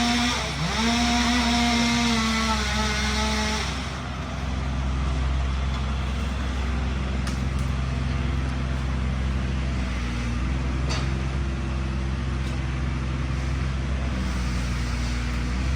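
Small engine running at high revs, with a brief dip in pitch about half a second in. About four seconds in the high engine note stops, leaving a steady low engine hum.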